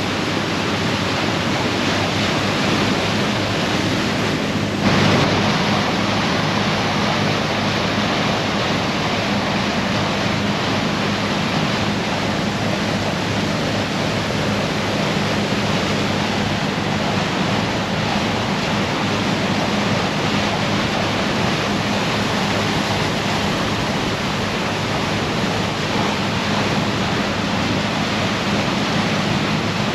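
Steady rush of water and wind on the bow of the Garinko-go icebreaker sightseeing ship under way, over a low steady drone from the ship's engine. A brief louder surge comes about five seconds in.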